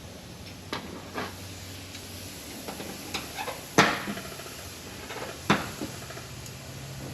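Scattered sharp knocks and clacks of hand work on metal parts, about six in all, the loudest nearly four seconds in, over a low steady hum.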